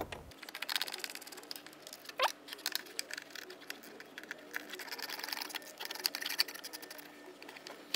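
Faint, rapid clicking of a ratchet's pawl as T30 Torx bolts are backed out of the engine computer mounting, with one short squeak about two seconds in.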